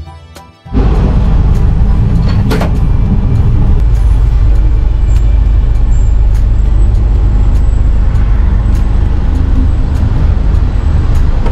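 Passenger train running, heard through an open carriage window as a loud steady rumble of wheels on rails and rushing air. It starts suddenly about a second in, with a single sharp clank a couple of seconds later.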